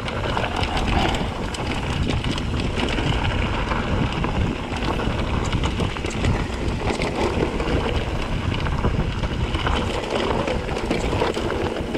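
Wind buffeting the microphone over the rumble and rattle of a mountain bike descending a rocky dirt trail, with many small clicks and knocks from tyres and frame striking the rocks.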